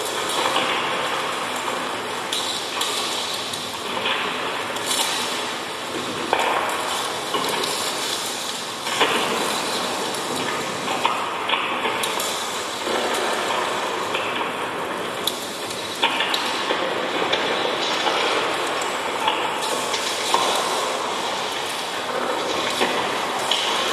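Live experimental electronic music made from short repeating loops: a dense, hiss-like noise texture with scattered sharp clicks, its colour changing abruptly every few seconds.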